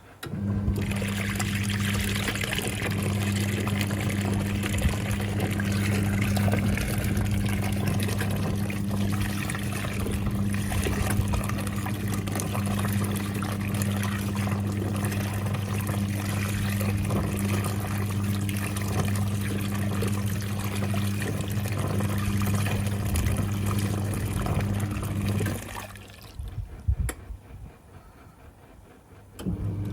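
National NA9450PN washing machine in its wash cycle: the pulsator motor hums steadily while water churns through the tub. The motor stops near the end, leaving a few seconds of quieter sloshing, then starts again, as the wash action pauses between runs.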